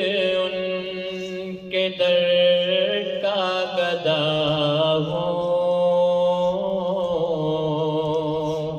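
A man singing a naat (Urdu devotional poem) unaccompanied into a microphone. He holds long, drawn-out wavering notes, with few or no clear words.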